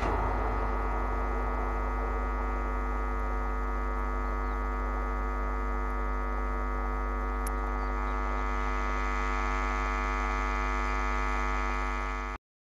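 A steady hum with many evenly spaced overtones, holding an even pitch and level, that cuts off abruptly near the end.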